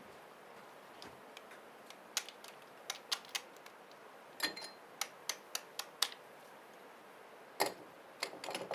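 A run of irregular sharp clicks and snaps over a faint steady background, one of them about halfway through ringing briefly.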